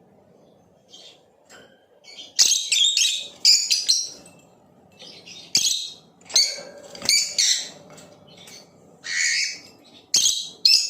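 Blue opaline lovebird chirping: short, shrill calls in quick clusters, with brief pauses between the groups.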